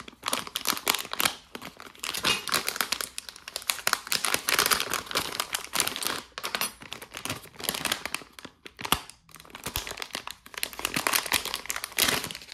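Thin plastic packaging bag crinkling and rustling in the hands as it is worked open, in runs of crackle with brief pauses.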